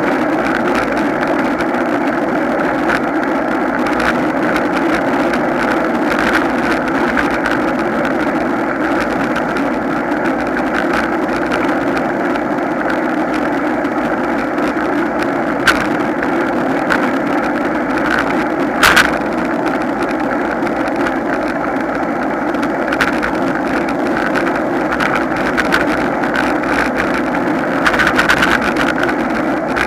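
Steady wind and road rumble picked up by a camera mounted on a road bicycle riding in a group, with two brief sharp clicks around the middle.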